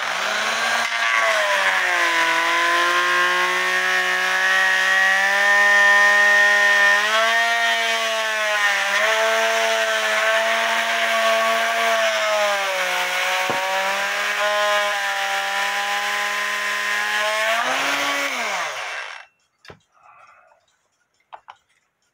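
Master Mechanic oscillating multi-tool running with a steady buzzing hum as its worn blade cuts along the glued-in bellows of a wooden cuckoo clock case. Its pitch wavers a little as the blade works, and near the end the motor drops in pitch and stops.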